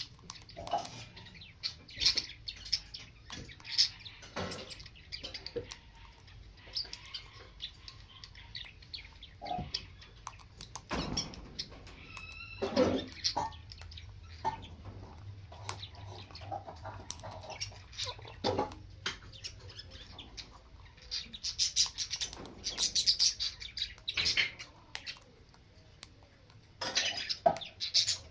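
Pet parrot chirping and squawking in short, scattered calls, mixed with sharp clicks and knocks, over a faint steady hum.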